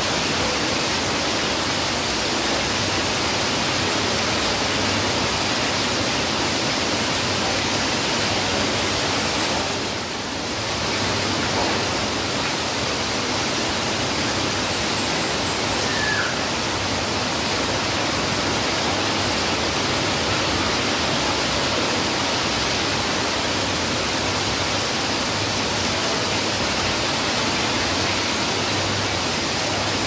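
Heavy rain falling steadily, with water streaming off a roof edge. The rush dips briefly about ten seconds in.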